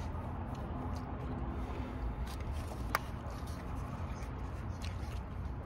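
Steady low rumble of outdoor background noise, with one sharp click about halfway through.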